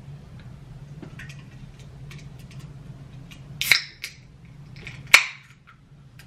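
Aluminium can of sparkling water being opened by its pull tab: light fingernail clicks on the tab, then a crack with a short fizzing hiss a little past halfway, and a second, sharper crack and hiss about a second and a half later.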